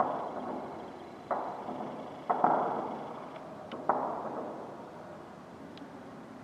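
Distant weapons fire from the fighting in the town: five sharp reports, two of them close together about two seconds in, each trailing off in a rolling echo.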